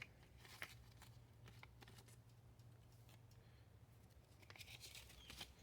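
Near silence: a faint low hum with a few light scattered clicks.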